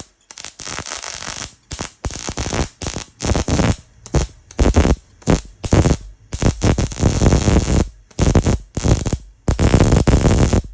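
Welder crackling in many short bursts, stopping and starting every half second to second or so, then running longer near the end: stitch welding the sheet-steel partition panel.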